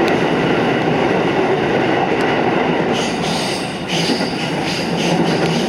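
Musashino Line electric train running on the rails, a steady heavy rumble of wheels and running gear. From about three seconds in, high-pitched wheel squeal and ticks join it.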